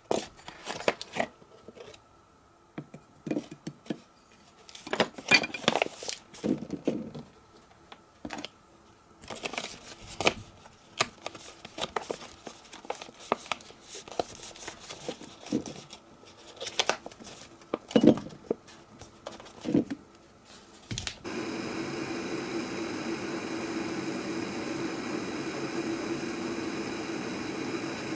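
A paper coffee bag crinkling and rustling, with small clicks from the scoop and other handling. About three-quarters of the way through, a steady hiss with a low hum starts as a pot of water heats on a gas stove.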